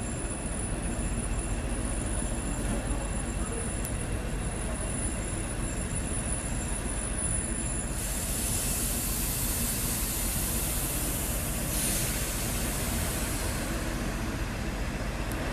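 Portuguese Class 1400 diesel locomotive's English Electric engine running with a steady low rumble. About eight seconds in a loud high hiss starts suddenly, is strongest for some four seconds, then carries on weaker.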